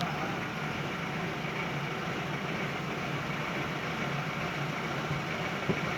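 A steady low mechanical hum, like a running motor, with one short click near the end.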